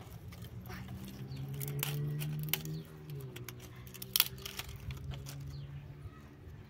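Dry sticks being handled and snapped for kindling, with a sharp snap about four seconds in. Under them runs a low steady hum that dips in pitch about three seconds in.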